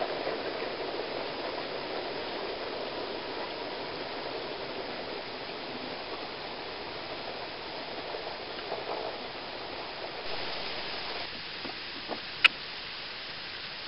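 A model garden-railway train rolling along the track, its wheels on the rails giving a steady rushing rumble that fades and thins out about eleven seconds in. A single sharp click comes shortly after.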